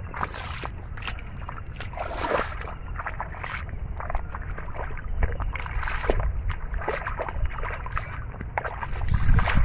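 Bare feet squelching and splashing through thick mud and shallow muddy water, a string of irregular wet slaps and sloshes, over a low rumble that grows louder near the end.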